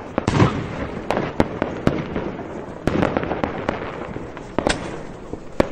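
Fireworks sound effect: a string of irregular sharp pops and bangs over a steady crackle.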